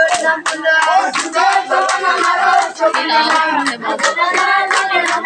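A group of men clapping hands in a steady rhythm, about four claps a second, while voices sing together over the claps.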